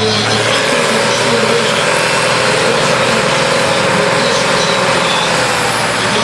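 A tractor-pulling tractor's engine running loud and steady, its pitch holding level.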